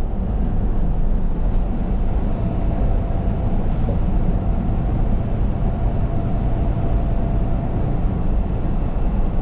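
Semi-truck's engine and road noise heard from inside the cab while driving: a steady low rumble.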